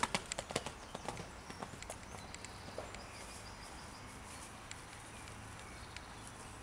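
Horse's hooves striking a sand arena at a canter: a run of sharp hoofbeats in the first second or two, growing sparser and fainter as the horse moves away.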